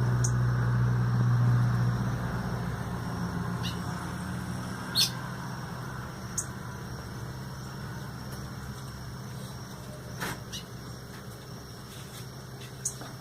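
Short, single bird chirps, about six of them, scattered a few seconds apart over a steady low hum that fades away in the first two seconds.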